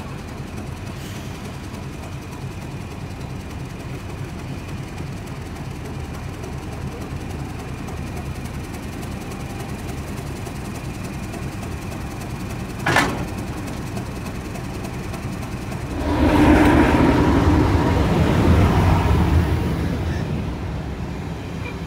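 Class 31 diesel locomotive idling with a steady low engine rumble. A short sharp sound comes about two-thirds of the way in. A few seconds later the engine note swells louder for about four seconds as power is applied to move onto the coaching stock, then eases back.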